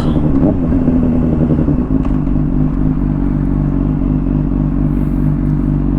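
Honda CBR600RR inline-four engine running at steady, moderate revs through a Hotbodies Stinger slip-on exhaust while cruising, with wind and road noise.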